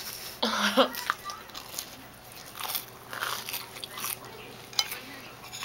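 Close-up chewing and crunching of fried dough, with scattered crisp bites and crackles. A short muffled vocal sound comes from a full mouth about half a second in.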